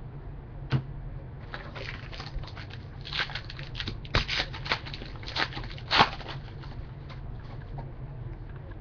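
Football trading cards being handled and flipped through: a run of light clicks and rustles from about a second and a half in, loudest near the end of the run, over a steady low hum.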